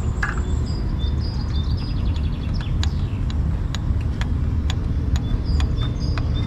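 Steady low rumble of wind on the microphone, with small birds chirping over and over and a few sharp clicks near the camp pot.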